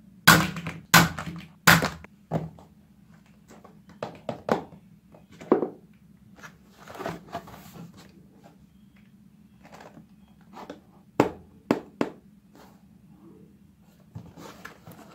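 A run of sharp plastic thunks and knocks: three loud ones close together in the first two seconds, more scattered later, and a short stretch of rustling around seven seconds. The sounds come from a toy dart blaster being shot at plastic action figures and then from a cardboard toy box being handled.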